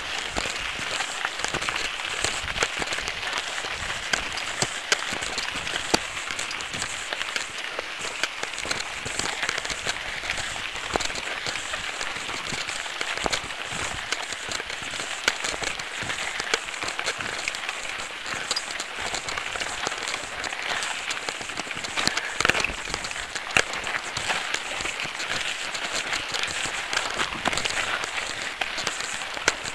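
Tyres rolling over a loose gravel dirt track: a steady crunching hiss thick with small clicks and rattles of stones and the bike shaking over the ruts.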